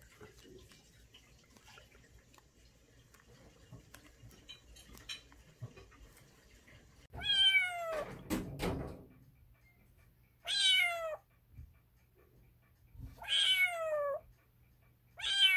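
Young kitten mewing: four high calls, each falling in pitch, about two and a half seconds apart, starting about halfway through. A low thump sounds under the first call.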